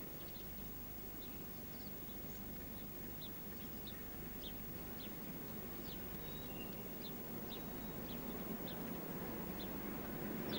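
Small birds chirping: short high chirps about twice a second over a steady low background hum.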